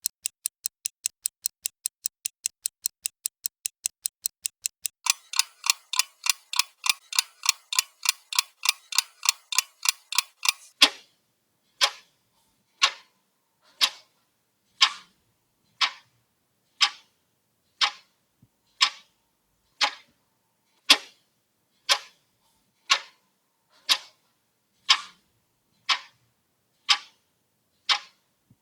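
Clock ticking in three paces: a fast, light tick about five times a second, then from about five seconds in a fuller tick two to three times a second, then from about eleven seconds in a deeper, louder tick once a second.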